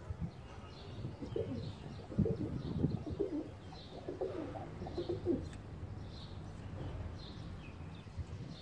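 White pigeons cooing, a run of low coos from about one second in to about five and a half seconds in, then quieter.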